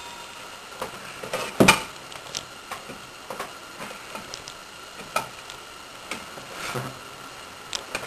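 Red bench vise being cranked down to crimp a terminal onto a heavy wire: scattered sharp metallic clicks and ticks from the handle and jaws, the loudest about a second and a half in.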